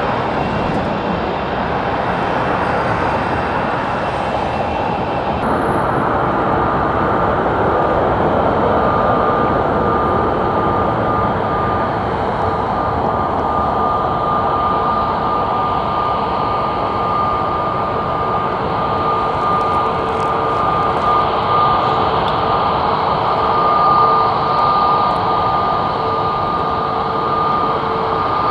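Jet airliner engines running at taxi power close by, a loud steady rush. A steady whine joins about five seconds in.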